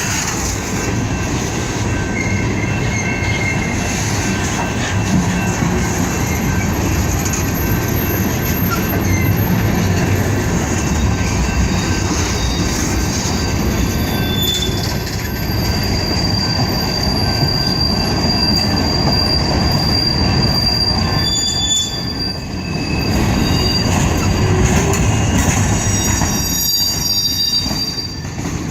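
Freight train cars rolling past with a steady low rumble, their steel wheels squealing in thin, high tones that come and go.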